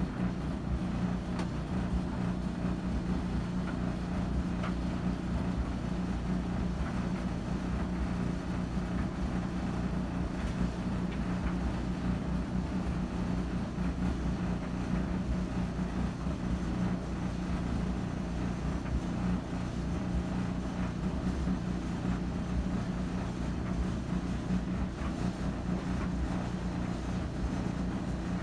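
A steady, unchanging low hum.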